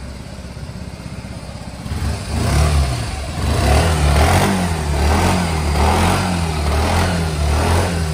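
Suzuki Burgman 125 scooter's single-cylinder four-stroke engine idling, then blipped repeatedly from about two seconds in, each rev rising and falling in pitch.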